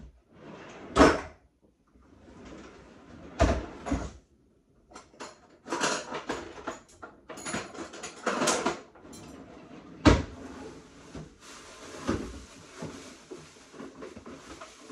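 Kitchen cupboard doors and drawers opening and shutting, with knocks and the clatter of things being moved, as someone rummages through the cabinets. The sharpest knocks come about a second in and about ten seconds in, with a busy stretch of clattering in between.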